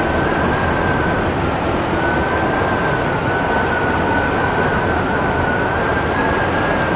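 Strong wind, about 80 km/h, blowing hard on the microphone: a loud, steady rush with a thin, high, steady whistle running through it.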